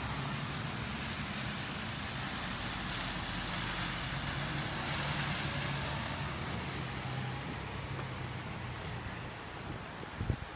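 Traffic on a rain-soaked street: a steady hiss with a low engine hum that fades out near the end.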